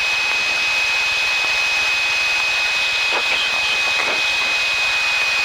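Steady cockpit noise of a Piper PA-28-161 in level flight: the engine and airflow as an even hiss, with a steady high-pitched whine running through it.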